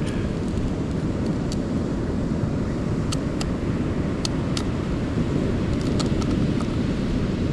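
Steady low rumble of ocean surf at the shore, with a scattering of sharp clicks and cracks from about three seconds in as a sea urchin's shell is broken open.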